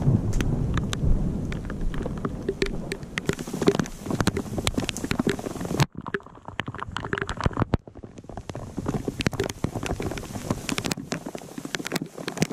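Walking sounds on a forest floor: footsteps crunching over duff and twigs, with pack and clothing rustling close to the microphone, giving many scattered crackles over a low rumble. The sound cuts out abruptly about six seconds in and starts again.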